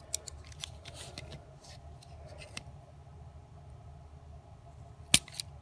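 Small clicks and scrapes of a diecast toy car being worked apart by hand, its drilled-out base and body separating, with one sharp click about five seconds in as it comes apart.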